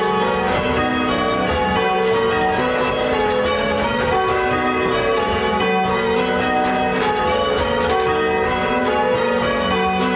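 A ring of eight Gillett & Johnston church bells rung in change ringing: the bells strike one after another in a steady, unbroken rhythm, their tones overlapping.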